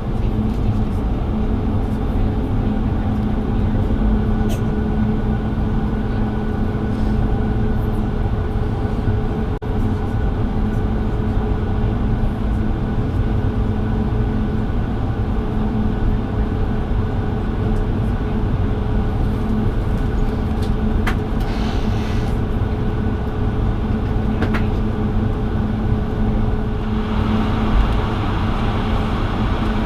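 Cabin noise inside a Bombardier CS100 airliner taxiing before takeoff: a steady rumble with a low engine hum. A hiss swells a little near the end.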